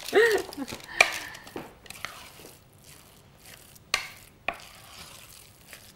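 Kitchen clatter of cookware and utensils on a countertop: a few sharp knocks in two pairs, with quieter handling noise between.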